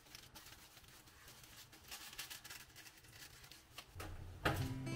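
Faint scattered clicks and taps of small objects being handled in a quiet room. Background music comes in near the end, just as a sharp knock sounds.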